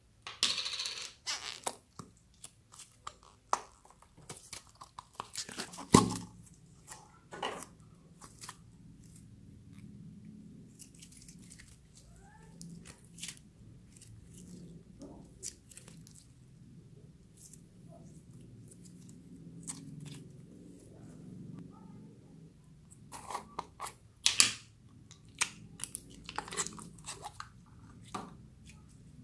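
Sticky slime being squeezed, stretched and pulled apart by hand, crackling and popping with sharp clicks. The clicks cluster in the first several seconds and again near the end, with softer squishing between.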